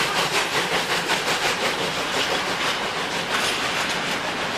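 A steam locomotive's exhaust beats, about five a second, fading over the first couple of seconds as it passes. The freight wagons behind it then roll past with their wheels clicking over the rail joints.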